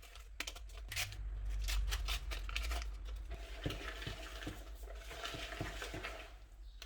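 Kitchen handling sounds while cake batter is mixed: packets crinkling, then a utensil knocking softly against a bowl several times. A low hum runs under the first few seconds.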